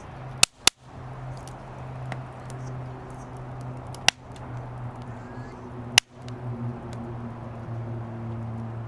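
Firewood burning in a fire pit, with four sharp pops as the wood cracks: two close together near the start, then one about four seconds in and one about six seconds in. A steady low hum runs beneath.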